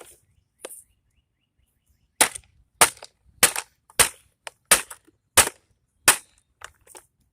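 Cord cutters snipping through the cords and wires holding an appliance's copper motor: seven sharp snaps about two-thirds of a second apart, after a few faint clicks.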